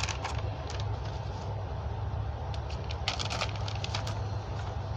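Scattered light clicks and rattles from paper targets being taken down and handled, with a quick cluster of clicks about three seconds in, over a steady low hum.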